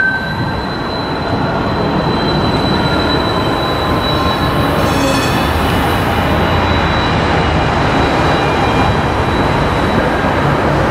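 Trams running over curved street track, their wheels giving a steady high squeal over the rolling noise.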